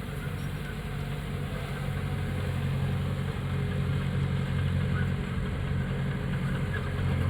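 Diesel engine of heavy earthmoving machinery running with a steady low drone that grows gradually louder.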